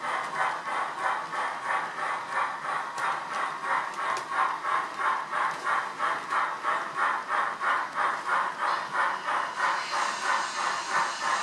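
Sound decoder in a model Beyer-Garratt steam locomotive playing its exhaust beats through a small sugar cube speaker: a steady rhythm of about three chuffs a second as the engine pulls away with its train.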